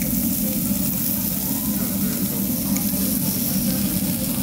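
Pork belly slices sizzling on a hot round grill plate, a steady hiss over a low hum.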